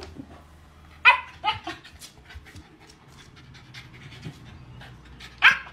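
Shiba Inu dog giving short yips at a cat: one about a second in, a weaker one just after, and another near the end, with faint sounds of the dog moving in between.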